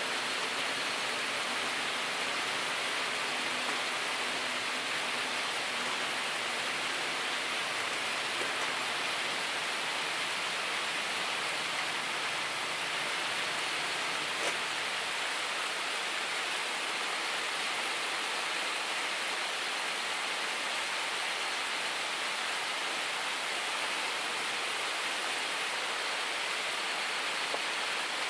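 Steady rushing of a river running close by, an even hiss that doesn't change. One faint tick of wood about halfway through.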